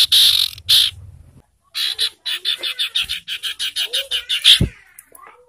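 Common iora giving harsh, rasping chatter notes: a slower series of about three a second, a short pause, then a faster run of about six a second that ends on its loudest note.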